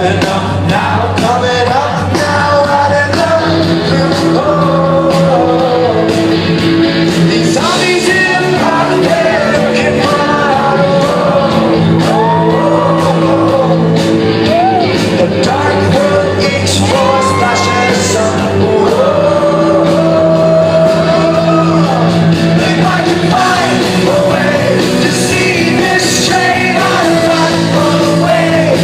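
Rock song with a lead singer's voice carrying the melody over steady held chords from the band.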